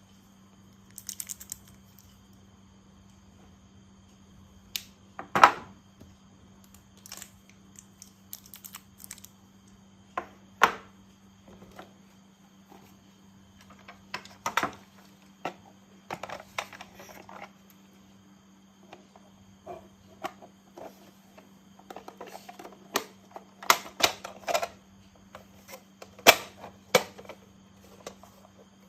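Plastic toy train parts being handled and clicked together: scattered sharp clicks and light rattles, with a quick run of ticks about a second in and busier clicking in the last third, over a faint steady hum.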